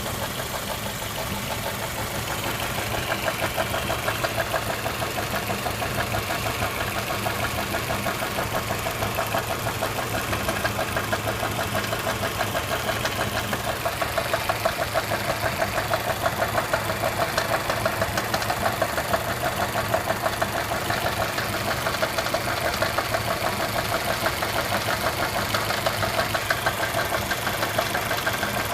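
Audi/VW 1.8T BFB four-cylinder turbo petrol engine running with a rapid, regular knock that keeps time with the engine, coming from the area of the cam phaser (variable valve timing adjuster).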